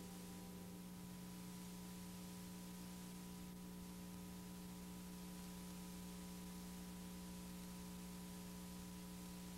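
Faint steady electrical hum with hiss: one low tone and several fainter higher tones, held unchanged.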